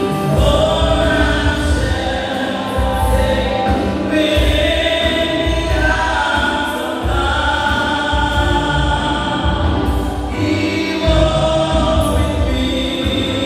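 A choir singing gospel music, many voices holding long notes over a pulsing bass accompaniment.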